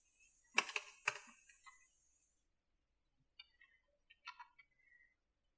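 Computer keyboard keys clicking three times in quick succession about half a second in, over a faint high hiss that fades out. A few fainter ticks follow later.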